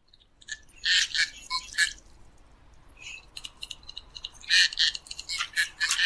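Common goldeneye calling: flurries of short, clicky, high-pitched notes, one about a second in and a longer one from about four and a half seconds in.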